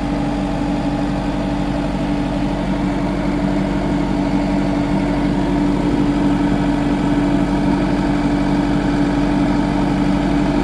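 A skid steer's diesel engine running steadily with an even hum and no change in speed.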